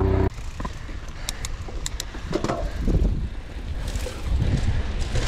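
Mountain bike riding down a dirt trail, heard from a helmet-mounted GoPro: wind buffeting the microphone over the rumble of tyres on dirt, with scattered clicks and rattles from the bike. It starts abruptly just after the beginning.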